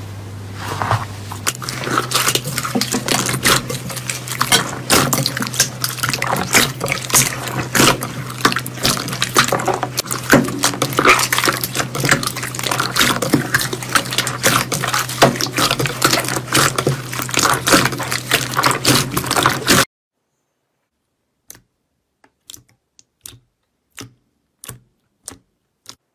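Hands squeezing and kneading a large mass of glossy slime, giving a dense, continuous run of wet crackles, pops and squelches. About twenty seconds in this stops abruptly, and a few short, sharp clicky pops follow, spaced under a second apart.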